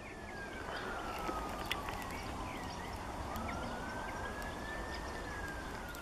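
A siren wailing slowly and faintly: one tone that sweeps down in pitch over about three seconds, then back up and starts falling again near the end.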